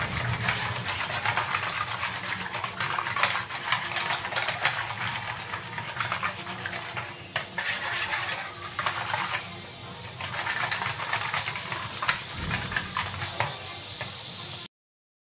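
Wire whisk rattling rapidly against the sides of a steel pot, beating a thin kadhi batter of buttermilk, gram flour and water. The clatter goes on unevenly and cuts off abruptly just before the end.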